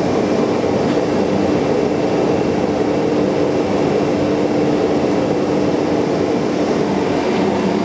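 ABAC 7.5 three-phase rotary screw air compressor running steadily: an even mechanical drone with a constant hum.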